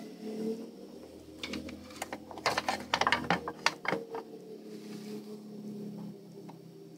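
Handling clicks: an irregular run of small sharp clicks and taps, clustered in the middle, over a faint steady hum.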